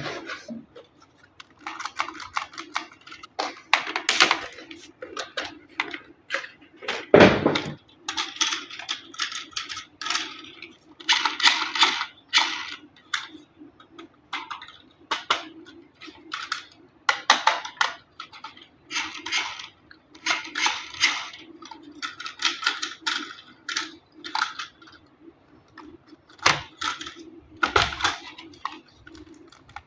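Plastic toy-car packaging and parts being handled: a long run of crinkling, rattling and light clicking over a low steady hum, with a loud knock about seven seconds in.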